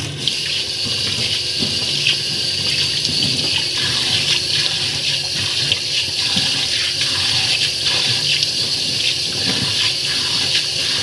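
A kitchen tap running steadily into a stainless steel sink, with water splashing as a hand rinses soap off a forearm.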